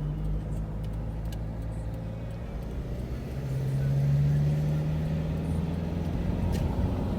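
Car driving on the road: a steady engine hum and road noise, the engine note growing louder for a second or two about halfway through.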